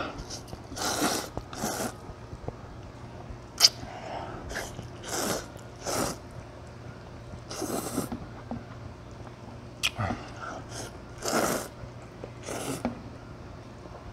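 A person slurping medium-thick wheat noodles from a bowl in about ten short, noisy slurps, with chewing between them. Two sharp clicks stand out, one near 4 seconds in and one near 10 seconds in.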